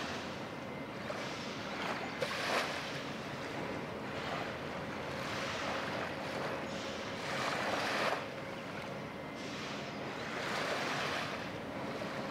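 Water washing in rising and falling swells every two to three seconds, over a faint steady hum.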